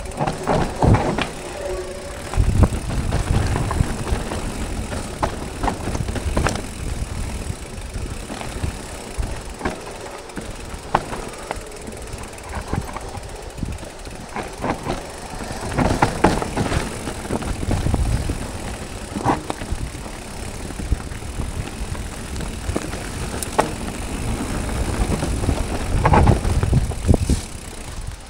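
Electric mountain bike ridden down a wet, rooty dirt trail: a continuous low rumble from the tyres on the ground, broken by frequent clattering knocks as the bike hits roots.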